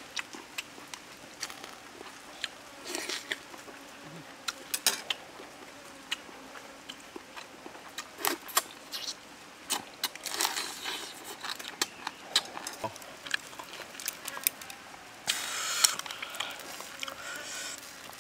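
Someone eating with chopsticks: sharp clicks of chopsticks against a plastic bowl and a wire grill, with chewing and slurping mouth sounds and a louder breathy stretch about three-quarters of the way through.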